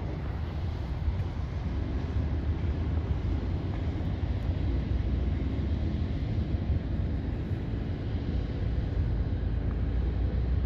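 Low, steady rumble of a passing saltwater bulk carrier's engine, with a faint steady drone held above it, mixed with wind on the microphone.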